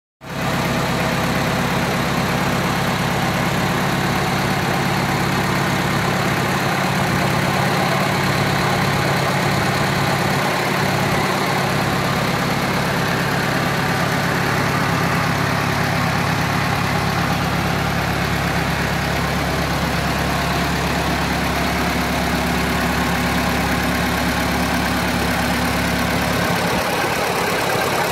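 1955 Farmall Cub's four-cylinder flathead engine running steadily at idle on its first run after being swapped in; its deepest hum drops away near the end.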